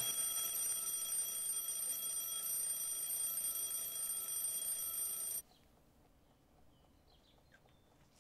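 Old mechanical wind-up alarm clock's bell ringing loud and continuously as a morning wake-up alarm, then cutting off suddenly about five seconds in.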